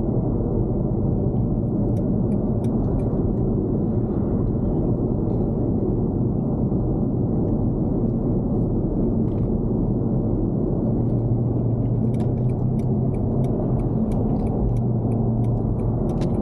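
Car cabin noise while driving in slow traffic: a steady low engine and road rumble. A few light clicks come about two seconds in, and a quick run of light clicks comes near the end.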